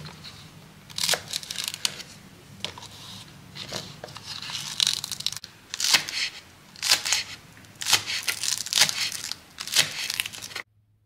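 Kitchen knife slicing a spring onion on a wooden cutting board: crisp crunching cuts, about one a second.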